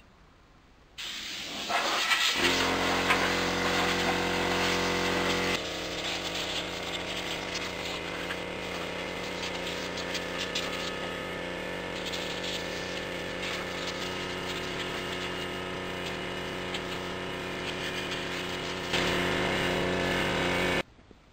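Portable air compressor running with a steady hum while an air blow gun hisses compressed air over a lawn mower engine to clean it out. It starts suddenly about a second in, is loudest for the first few seconds, swells again near the end and then cuts off suddenly.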